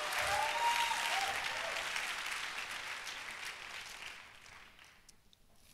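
Church congregation applauding in response to a call to praise, the clapping dying away over about five seconds.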